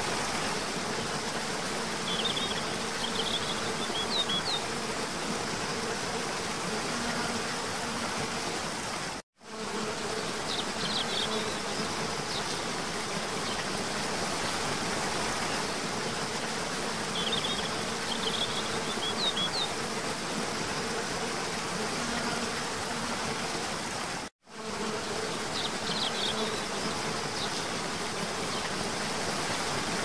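Steady rush of a cascading waterfall, with short bursts of high bird chirps recurring every few seconds and a faint low hum underneath. The sound drops out for an instant twice, about nine seconds in and again about twenty-four seconds in.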